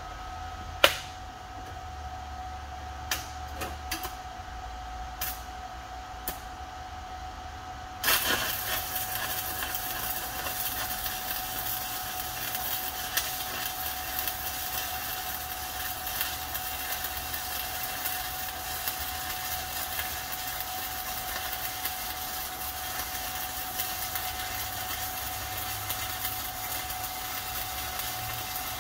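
A few sharp clicks, then about eight seconds in a stick welding arc from a Titanium Unlimited 200 welder strikes and crackles steadily as the electrode burns along the weld.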